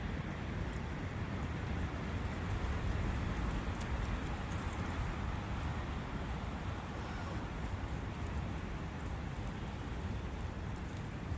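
Steady countryside ambience of a brook running, a constant rushing with a low rumble underneath.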